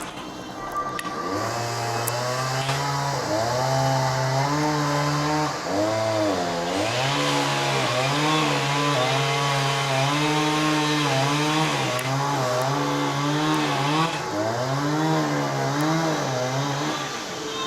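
Two-stroke chainsaw running at high revs and cutting wood. Its engine note sags and recovers several times as the chain bites under load, starting about a second in and stopping just before the end.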